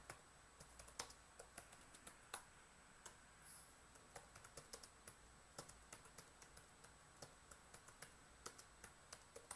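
Faint computer keyboard typing: a long run of irregular, quick key clicks.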